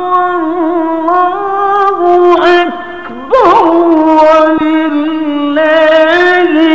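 A man's voice in melodic mujawwad-style Quran recitation, holding long, wavering melismatic notes with a brief break about three seconds in.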